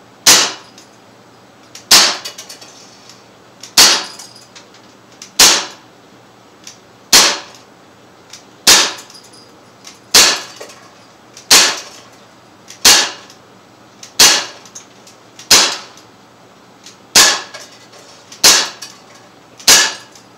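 Umarex Glock 19 Gen 3 non-blowback CO2 pistol firing .177 steel BBs, one shot at a time. There are fourteen sharp shots, each with a short tail, spaced about one and a half seconds apart.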